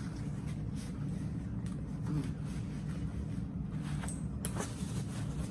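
A person chewing a mouthful of sandwich, with soft scattered mouth clicks, over a steady low hum.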